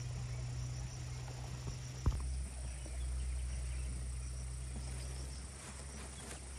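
Insects chirping steadily over a low steady hum, with one sharp knock about two seconds in.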